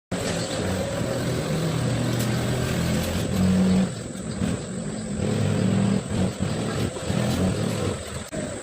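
Forklift engine running and working, its low hum rising and falling in pitch, loudest about halfway through.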